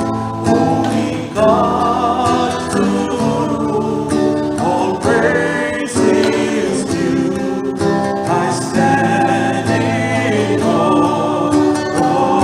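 Church choir singing a hymn with instrumental accompaniment.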